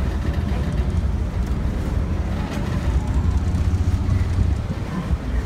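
Passenger water bus (vaporetto) engine running with a steady low rumble, with wind on the microphone.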